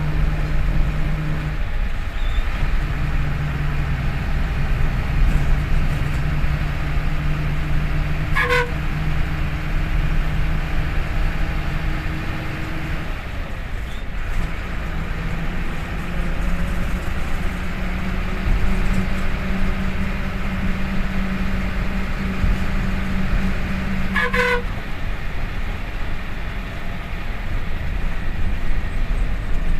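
A diesel bus engine runs steadily, heard from the driver's cabin. Its note breaks off briefly twice and climbs higher around the middle. The bus horn gives two short toots, one about eight seconds in and another some sixteen seconds later.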